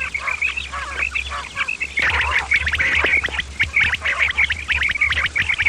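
Many quails calling at once: a dense run of short, overlapping chirping calls that grows louder and thicker about two seconds in, over a steady low hum.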